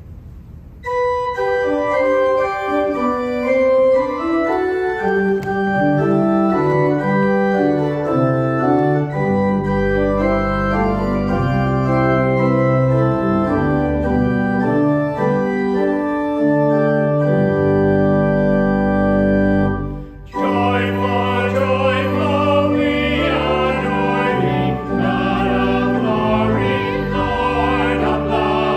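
Church organ playing slow sustained chords, entering about a second in, with deep bass pedal notes joining about a third of the way through. It breaks off briefly about two-thirds of the way in and resumes.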